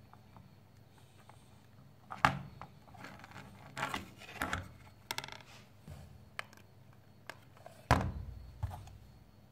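Handling noise from wooden ice-cream sticks and a hot glue gun on a tabletop: a sharp knock about two seconds in, a cluster of clicks and rubbing around four to five seconds, and a heavier thump near the end.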